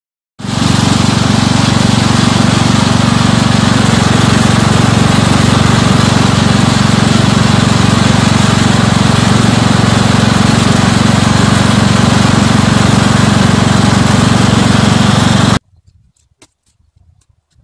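Murray 12.5 hp lawn tractor engine running steadily while driving, very loud and close. It cuts in sharply just after the start and cuts off abruptly near the end.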